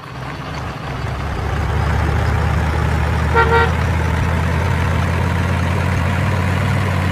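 A motor vehicle engine running steadily, fading in over the first two seconds, with one short car-horn beep about three and a half seconds in.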